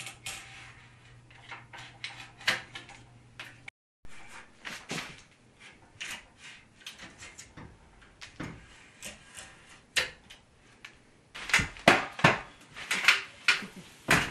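A utility knife shaves the corner off the tongue of a painted wooden tongue-and-groove ceiling board in short scraping strokes, to ease a joint that is too tight. Knocks and clatter come from the board being handled, with a run of loud knocks a couple of seconds before the end.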